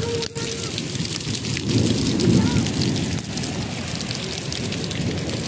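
Steady hiss of rain with many small drop crackles, and a louder low rumble from about two seconds in.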